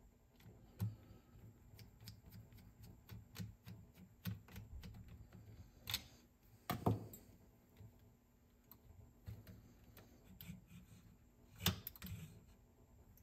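Scattered light clicks and taps of small metal parts and hand tools being handled while a Nakamichi 680ZX cassette deck's tape transport is reassembled, with a few louder knocks, the sharpest about seven seconds in.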